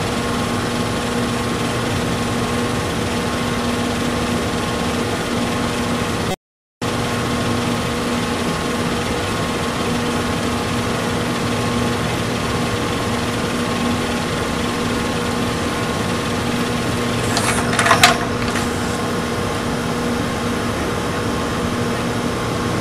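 LG V194H DVD/VCR combo's deck winding a T-120 VHS cassette at high speed in fast-forward or rewind: a steady mechanical whir with a hum in it. The sound cuts out for a moment about a quarter of the way in, and a brief louder noise comes about three-quarters through.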